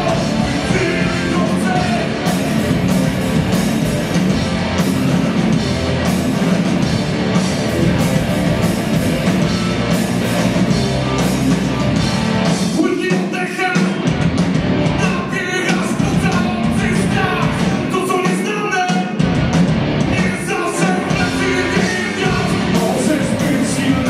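Live rock band playing: electric guitars, bass and drums with a male singer. The low end drops out briefly about halfway through and again a few seconds later, leaving the voice and guitars on top.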